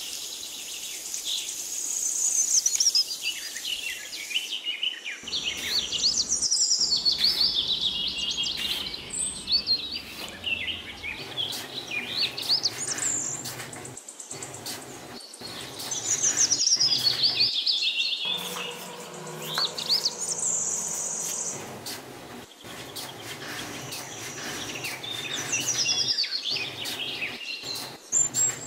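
Birds chirping and singing, with runs of quick high calls coming every few seconds.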